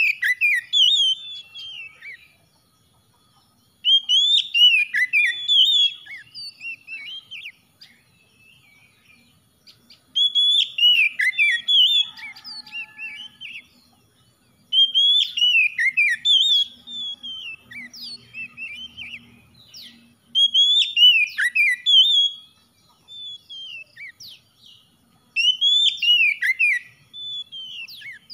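Oriental magpie-robin (kacer) singing: phrases of loud, sweet whistles and quick slurred notes, each two to three seconds long, repeated about every five seconds with short pauses between.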